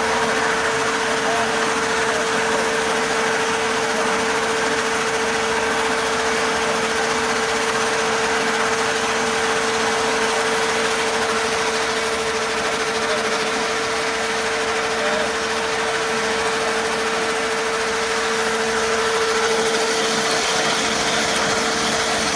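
Dazzini TCI260VH chain saw running steadily, its chain cutting a vertical slot in wet stone: a constant mechanical whir with a steady hum through it.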